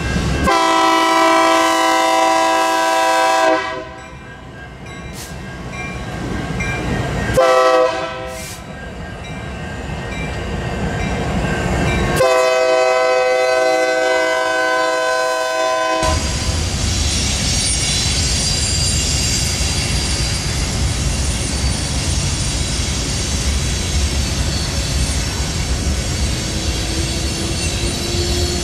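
Diesel locomotive's multi-chime air horn sounding a long blast, a short blast, then another long blast, the closing part of the standard grade-crossing horn signal. Then the steady rumble and clatter of the train's wheels rolling past.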